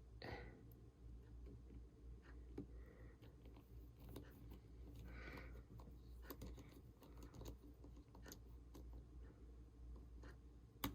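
Faint, scattered small clicks of a small screwdriver driving the last screw back into an iPhone 6, over near silence.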